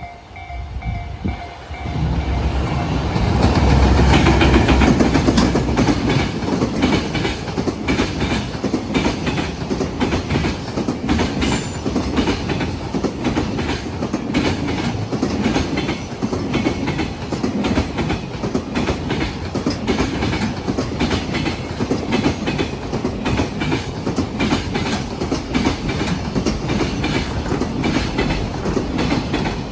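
A freight train passes over a level crossing. The locomotive arrives about two seconds in and is loudest a few seconds later, followed by a long string of freight wagons clattering steadily over the rail joints, many wheel knocks a second. A level-crossing warning bell rings at the very start before the train drowns it out.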